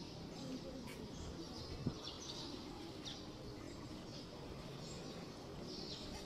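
Background ambience of a large open-sided church hall: steady low background noise with scattered faint bird chirps, and a single thump about two seconds in.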